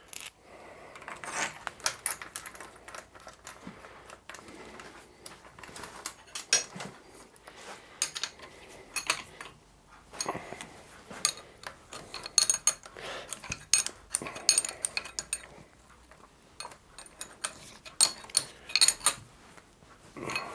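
Spanner clinking on the T-bolt nuts and washers as a machine vise's swivel base is tightened down onto a milling machine table: irregular sharp metal clicks and clinks.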